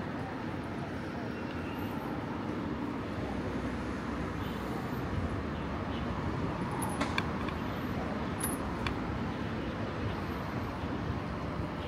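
Street traffic noise heard while cycling through city streets: a steady hum of passing vehicles, with a few short sharp clicks a little past the middle.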